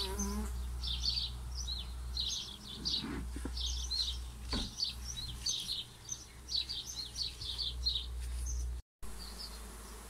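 A swarm of honeybees buzzing steadily around their cluster as they are smoked to make them move into a bait hive. Short high bird chirps come and go over the buzzing, with a few faint knocks in the middle.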